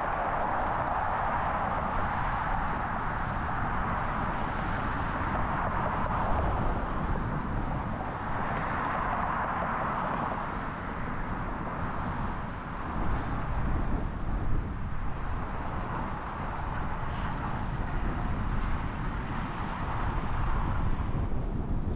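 Car driving through city streets: steady tyre and road noise over a low rumble.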